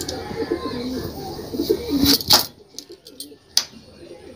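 Pigeons cooing in the background, with a loud knock a little over two seconds in and a single sharp click about a second later. The cooing is fainter after the knock.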